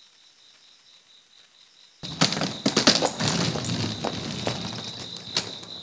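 Near silence for about two seconds, then crickets start chirping steadily, with scattered sharp clicks and knocks over them.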